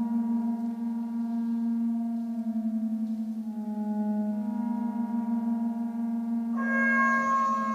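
Slow ambient drone music: a steady low hum under long held tones that shift slowly, with brighter, higher notes coming in near the end.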